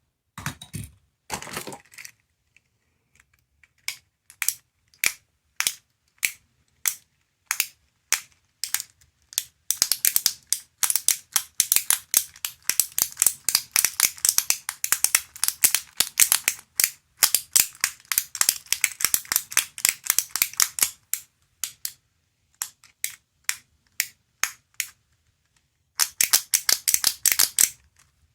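Sharp clicks from a small sound-making capsule toy being worked by hand: separate clicks about twice a second at first, then rapid clicking for about ten seconds, a few scattered clicks, and another fast run of clicks near the end.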